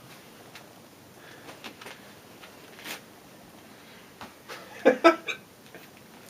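A quiet stretch with a few faint clicks, then a quick run of three short, high-pitched vocal sounds about five seconds in.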